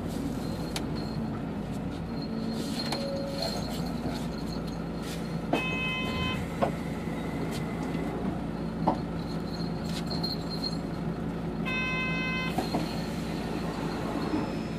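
Hino BJG-HU8JLFP hybrid city bus heard from inside the cabin as it runs, with a steady drivetrain hum. A short electronic beep sounds twice, about six seconds apart, and a few light clicks and rattles come and go.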